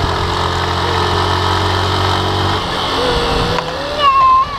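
Engine of a small hand-throttled vehicle running steadily over wind noise, easing off about two and a half seconds in. Near the end a child lets out a short, loud, high-pitched squeal.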